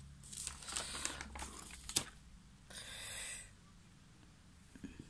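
Rustling and handling noise from the diamond-painting canvas and its covering sheet being moved about, with a sharp click about two seconds in.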